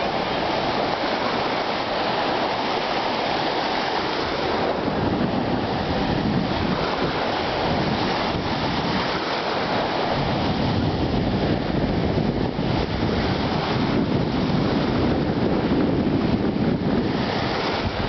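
Small sea waves breaking and washing in over a shallow sandy shore, a steady surf noise, with wind rumbling on the microphone that grows stronger partway through.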